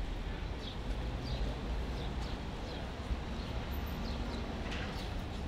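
Street ambience: a steady low rumble of traffic, with vehicles passing close on a wet road, and many short, falling bird chirps throughout.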